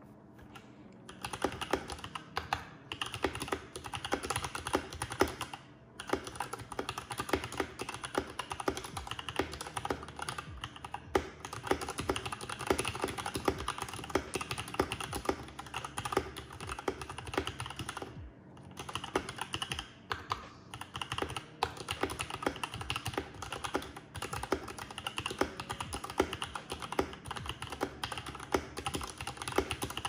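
Fast, continuous typing on an Ajazz K620T 60% mechanical keyboard with pre-lubed Ajazz pink linear switches, a plastic case and double-shot PBT keycaps: a rapid stream of key clacks and spacebar strokes that starts about a second in, with a few brief pauses.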